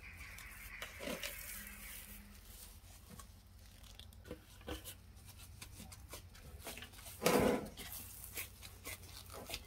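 Faint squishing and rustling as a hand in a thin plastic glove presses and gathers soft tofu-and-wheat-gluten dough in a glass bowl, with one louder rustle about seven seconds in.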